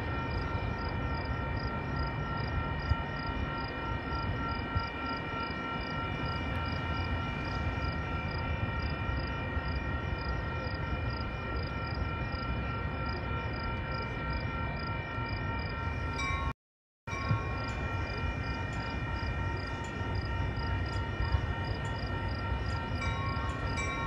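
Railroad crossing bell ringing in a fast, steady rhythm while a train approaches, over the low rumble of the oncoming train. The sound drops out briefly about two-thirds of the way through.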